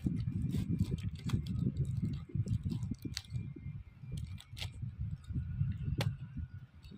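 Close-miked chewing and mouth sounds of someone eating, with a few sharp clicks scattered through.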